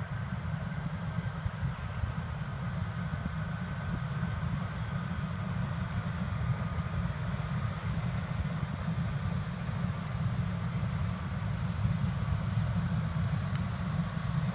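Combine harvester running steadily: a deep, even rumble with a faint high whine above it.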